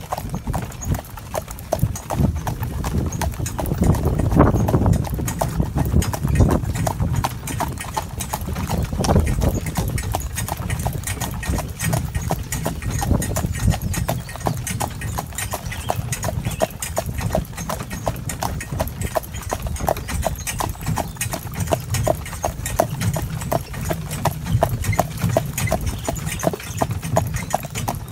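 Hooves of a Gelderlander horse in harness clip-clopping in a steady, even rhythm, over a steady low rumble.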